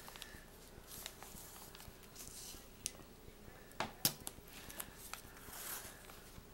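Hands handling the paper pages of a junk journal: light rustles and a few sharp clicks as washi tape is smoothed onto a page, then a soft swish as the pages are turned near the end.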